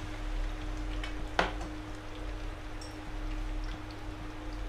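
Bánh xèo batter sizzling in hot oil in a steel wok, a steady crackling hiss, with one sharp knock about a second and a half in.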